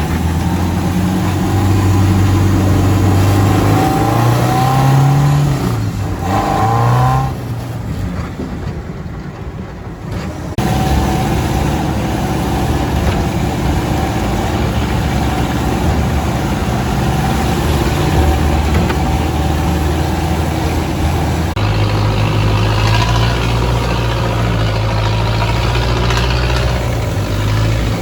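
Off-road 4x4 engines running and revving, pitch rising and falling in the first several seconds, then running more steadily, with abrupt jumps in the sound twice.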